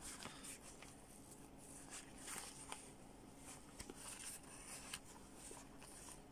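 Faint rustling and a few soft ticks from hands handling a cloth sport face mask, scattered through otherwise quiet room tone.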